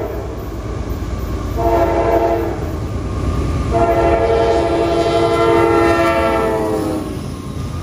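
CSX freight locomotive's air horn sounding a chord of several notes, a short blast and then a long one of about three seconds, over a steady low rumble from the train.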